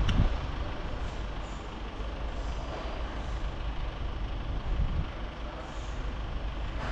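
A heavy vehicle or machine running, a steady low rumble with noise.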